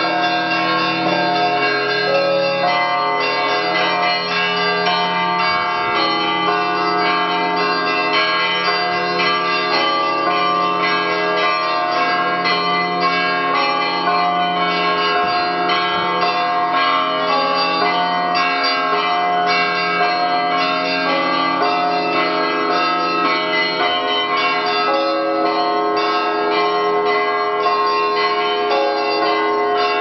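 Church bells in a belfry ringing a continuous peal. Many bells of different pitches are struck in quick succession over a low, steady hum.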